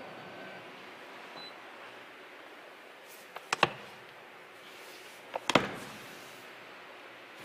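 Handling clicks and knocks around the third-row seats: a pair of sharp clicks about three and a half seconds in, then a louder cluster of knocks about two seconds later, over a steady background hiss.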